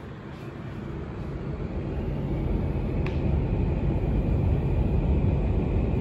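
Sharp AY-H25N-W split room air conditioner's indoor unit running, its fan blowing a steady rush of air that grows much louder over the first couple of seconds and then holds. A faint high whine joins from about two seconds in, and there is a single click about three seconds in.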